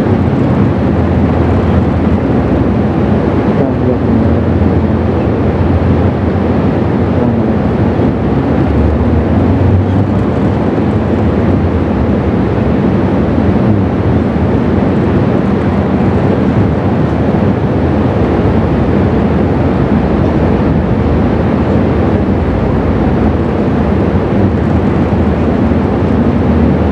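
Steady, even rumbling background noise of the large mosque hall during the silent final sitting of the prayer, with no distinct events.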